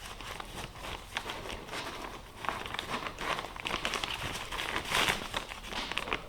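A shop vac filter bag being handled and its cut edge folded over, crinkling and crackling in irregular bursts, with a louder crinkle about five seconds in.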